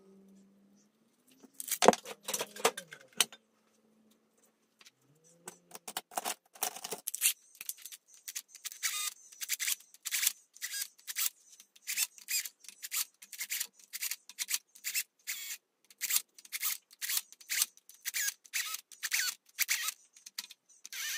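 Ratchet clicking in quick back-and-forth strokes, about two to three a second, as the camshaft bearing cap nuts are run down on a VW 16v cylinder head. A short clatter of metal clicks comes about two seconds in.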